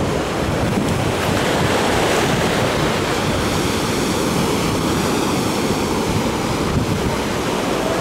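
Sea surf breaking and washing onto the beach in a steady rush, with wind buffeting the microphone.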